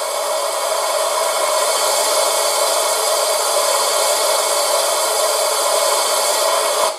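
Cylinder-steam hiss, the sound of a steam locomotive's cylinder drain cocks, played by the two-channel sound decoder of a KM1 Modellbau gauge 1 model of DR class 18.2 locomotive 18 201 with its smoke generator not running. It is a steady hiss that cuts off suddenly near the end.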